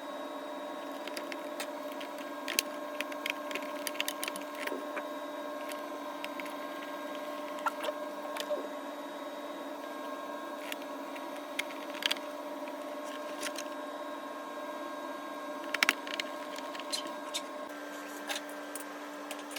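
Scattered light clicks and taps of small hard parts being handled, over a steady background hum.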